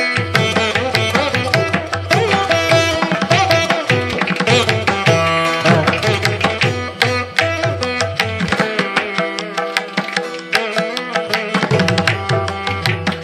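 Instrumental background music with a quick, steady drum rhythm over pitched melody; the low drum strokes drop out for a few seconds past the middle, then return.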